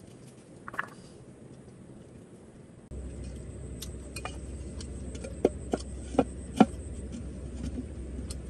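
Earthenware clay pot and its lid clinking: a faint clink about a second in, then four sharp ceramic clinks in quick succession past the middle as the lid is handled on the pot.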